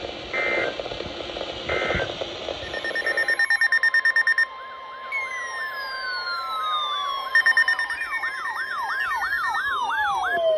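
Electronic alert and siren tones: two short high beeps over hiss, then a rapid run of beeps. From about halfway, overlapping tones sweep downward in pitch with a fast up-and-down warble and another burst of beeping.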